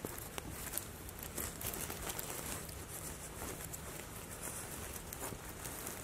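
Outdoor background noise: a steady hiss with a low hum and a few faint, scattered ticks and rustles.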